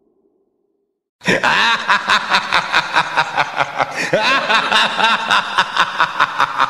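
Loud laughter starts abruptly about a second in, after a moment of silence, and goes on in a fast rhythmic ha-ha pattern of about four pulses a second.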